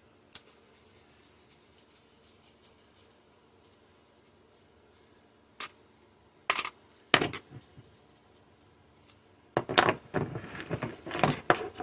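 Hand tools clicking and scraping on the microwave's metal fan-motor mounting while the nut and screw holding it are worked loose. There are scattered light clicks, two louder clatters about six and seven seconds in, and a busier run of scraping and clinking near the end.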